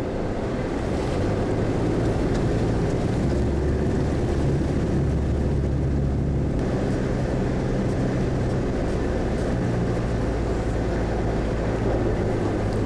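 Four-wheel-drive vehicle's engine running at low, steady revs as it drives through a creek crossing, with a deep engine note that rises and falls slightly.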